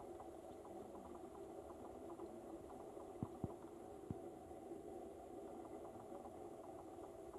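Steady low hum like a distant engine, with faint quick ticking over it. Three short sharp clicks come a little after three seconds in and again at about four seconds, like twigs being handled.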